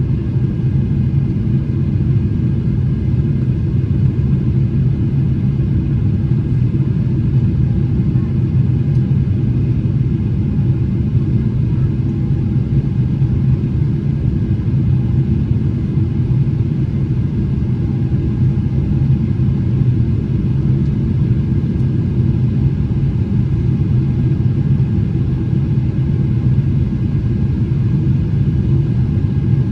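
Inside the cabin of a Boeing 777-300ER: the steady low rumble of its GE90 jet engines and the airflow, with a few faint steady tones above it.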